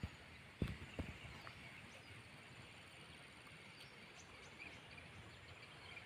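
Faint, steady outdoor ambience of flowing water, with two short knocks close together about a second in.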